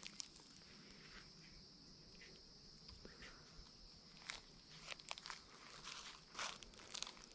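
Footsteps crunching on dry dead leaves and forest ground cover, a handful of steps in the second half after a quiet start, over a steady high-pitched drone.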